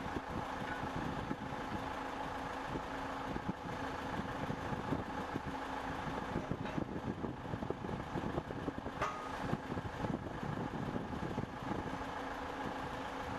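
Steady mechanical hum of running machinery, like an idling engine, with faint irregular clatter.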